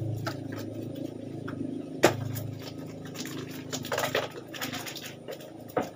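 Knife chopping and scraping on a wooden stump chopping block while cleaning climbing perch (papuyu): irregular knocks and scrapes, the loudest knock about two seconds in.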